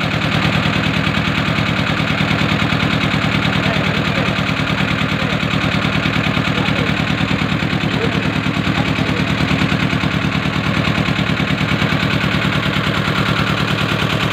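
Motor boat's engine running steadily under way, a loud, even chugging that doesn't change in speed.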